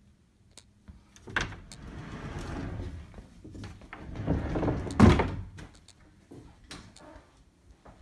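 A closet door being moved and shut: a knock, a few seconds of rustling and rolling noise, then a sharp bang about five seconds in, followed by a few light knocks.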